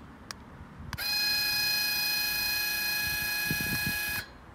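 Electric linear actuator's motor whining at a steady pitch for about three seconds as it slowly extends to push up a roof-mounted solar panel, then cutting off suddenly. A couple of faint clicks come just before it starts.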